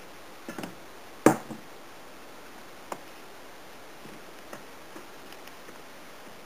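Pizza dough being mixed in a stainless steel bowl with a wooden spoon and hands: a few sharp knocks against the bowl, the loudest about a second in with a brief ring, then lighter taps.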